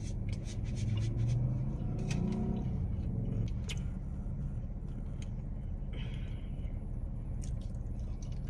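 Steady low rumble inside a car cabin, with scattered small clicks and rustles of hot wings and a ranch cup being handled and eaten.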